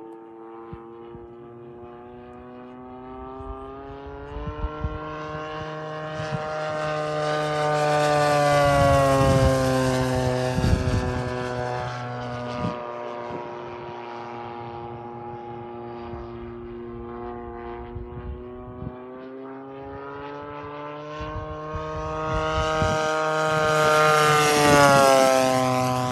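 Large-scale RC warbird's DLE 55 single-cylinder two-stroke gas engine and propeller in flight, making two passes. Each time it grows louder and rises in pitch as it approaches, then the pitch drops as it goes by, loudest about nine seconds in and near the end.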